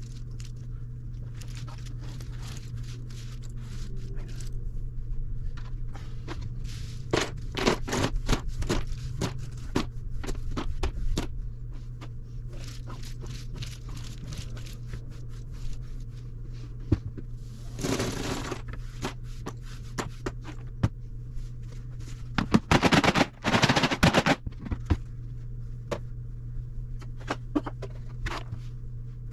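Cardboard jigsaw puzzle pieces being pulled apart and scraped over a tabletop, clicking and rattling, with louder clattering spells as a heap of loose pieces is gathered up, under a steady low hum.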